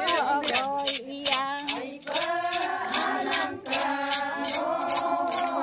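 Group of women singing a traditional folk chant in unison, clapping their hands in a steady beat about three to four claps a second.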